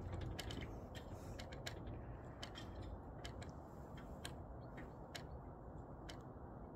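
Faint, irregular clicks and ticks, a few a second, over a low, steady background rumble.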